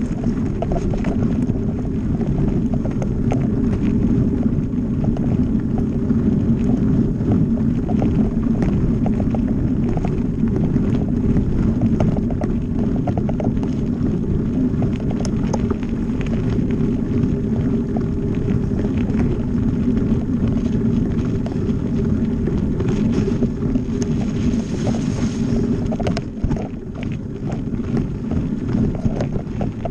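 Mountain bike riding fast over a gravel forest trail: a steady rumble of wind on the microphone and tyres rolling on gravel, with frequent small clicks and rattles from the bike.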